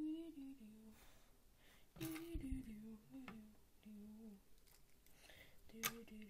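A child humming a wandering tune to himself, with a few sharp clicks of plastic Lego pieces being handled about two seconds in and near the end.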